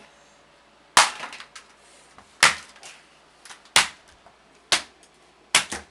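Vintage box fan being smashed: a series of sharp, heavy blows, about one every second or so, with the last two close together and light rattles of loose parts between.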